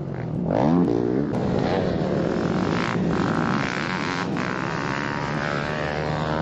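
Dirt bike engine, a 450-class four-stroke, revs up under a second in and then runs steadily at low speed, its pitch wavering slightly.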